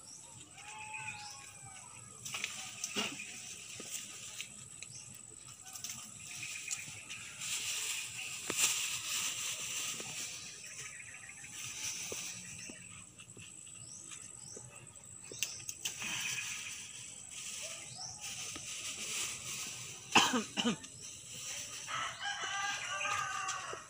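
Roosters crowing and chickens clucking, over the rustle of palm fronds and a plastic bag as betel nuts are picked by hand. There is a sudden knock about twenty seconds in.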